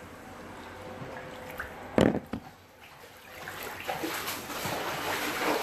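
Floodwater sloshing and trickling, with a sharp knock about two seconds in that is the loudest sound, and a smaller one just after it.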